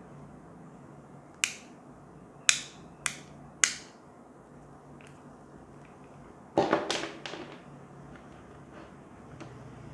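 Inline cord switch on a lamp power cable clicked four times, sharp plastic clicks about half a second to a second apart. About six and a half seconds in, a short clatter as the cable, switch and plug are set down on the table.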